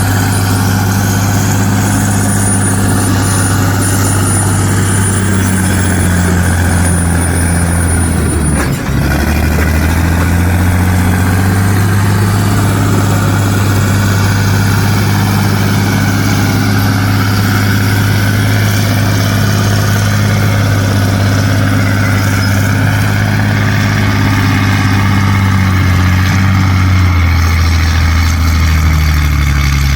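Heavy truck's diesel engine running steadily at a low, even hum, with a brief break about nine seconds in.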